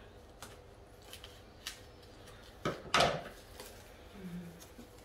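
A few light clicks and taps of small items being handled, the loudest pair about three seconds in.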